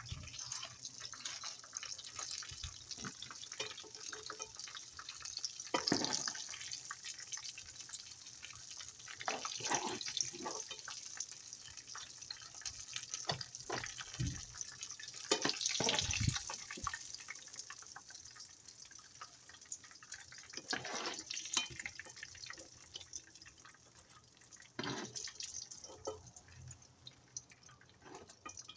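Breaded cow's brain pieces frying in hot oil in a pan: a steady sizzle dense with small crackles and pops, swelling louder several times.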